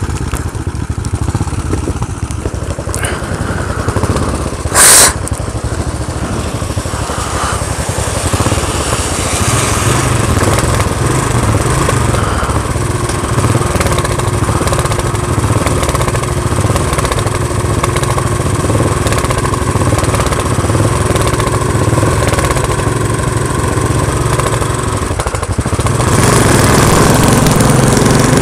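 Royal Enfield Continental GT single-cylinder motorcycle engines idling side by side at a standstill in heavy rain. There is a very loud, brief burst of noise about five seconds in, and the engine sound grows louder from a couple of seconds before the end.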